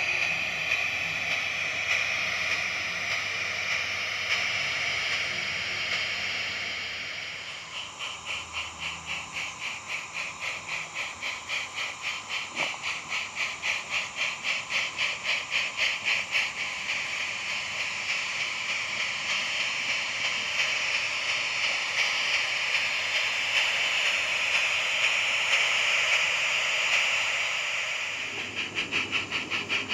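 Garden-railway model steam locomotive: a steady steam hiss, then from about eight seconds a rhythmic chuffing that starts at roughly three beats a second and quickens as the train gets going.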